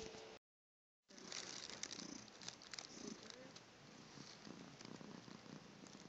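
Faint, raspy breathing of a sleeping cat heard close up, a soft purr-like rasp coming in irregular pulses. The sound drops out to silence for under a second near the start.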